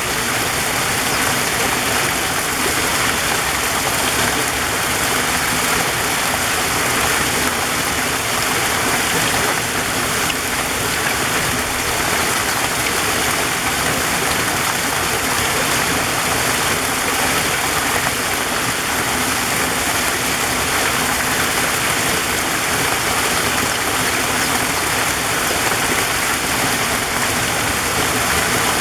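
Waterfall: a steady, unbroken rush of falling water, with a bright hiss.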